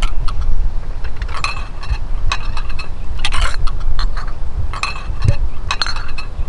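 China teacups and saucers clinking irregularly as they are set out for a picnic, each clink with a short ring, over a steady low rumble.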